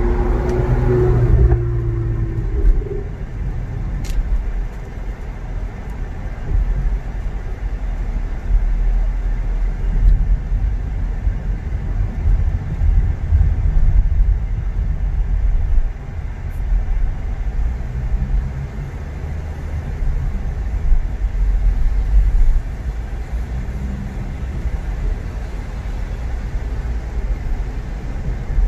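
Car driving, a steady low rumble of engine and road noise with a fainter hiss over it. A short pitched hum sounds in the first second or so, and a single click comes about four seconds in.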